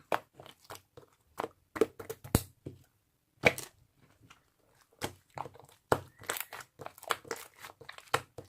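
Slime being squished and worked by hand, giving irregular crackling and popping clicks, with a couple of short pauses.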